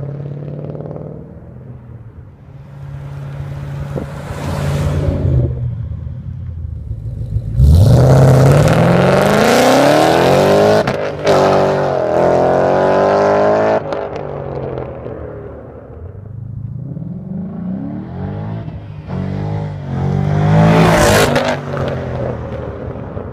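2012 Ford Mustang GT's 5.0 V8 through an H-pipe and Borla Touring axle-back mufflers, accelerating hard. The revs climb steeply about a third of the way in, break briefly, climb again and then drop off. A second, shorter acceleration peaks near the end.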